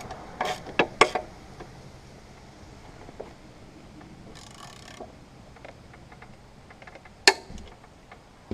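Socket wrench and blade lock on a lawn mower's blade bolt: a few short clicks and knocks in the first second, scattered faint ticks, then one loud sharp knock near the end as the bolt is tightened back up.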